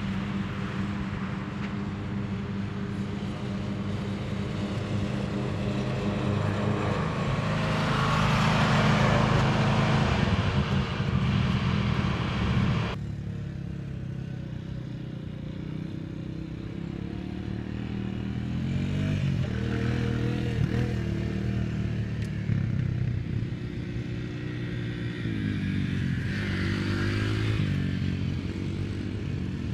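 A small petrol engine running steadily, loudest about eight to ten seconds in. After an abrupt cut about thirteen seconds in, a small youth ATV's engine runs, revving up and down several times as it is ridden.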